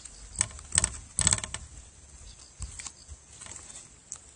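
Metal pliers clicking and rattling against the hook and lure while the hook is worked out of a bass's mouth: a quick run of sharp clicks in the first second and a half, then a few fainter ones about three seconds in.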